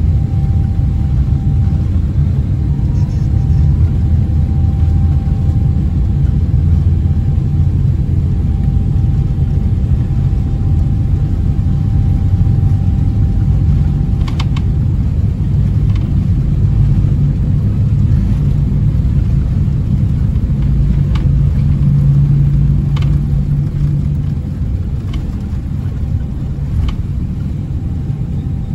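Cabin noise of a Boeing 777-300ER on its takeoff roll: a loud, steady, deep rumble of the GE90 engines at takeoff power and the wheels on the runway, with a few separate thumps in the second half. The rumble eases slightly in the last few seconds as the jet lifts off.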